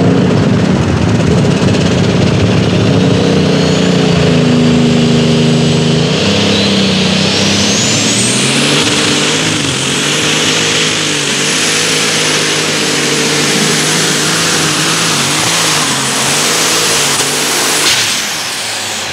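A light super stock Case pulling tractor's turbocharged diesel engine running hard under full load during a pull. A high turbo whine climbs over a few seconds and holds, then falls away near the end as the engine comes off the load.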